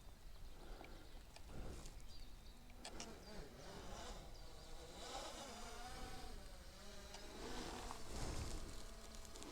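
Faint buzz of a quadcopter drone's propellers, its pitch wavering up and down as the drone manoeuvres, most noticeable from about four to eight seconds in.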